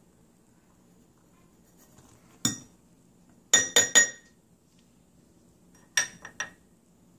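Metal measuring cup clinking with a bright metallic ring as it is tapped against the sink. One tap comes first, three quick taps follow about a second later, and three more come near the end.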